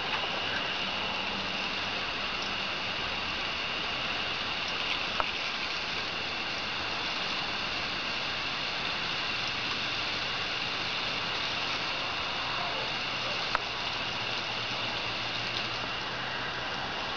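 Steady hiss of a garden hose's water stream spraying and pattering onto grass and wet pavement, with a couple of faint sharp clicks.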